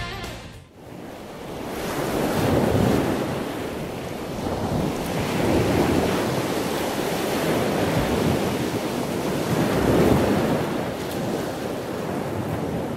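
Pacific Ocean surf breaking on a sandy beach, swelling and easing every three to four seconds, with wind buffeting the microphone.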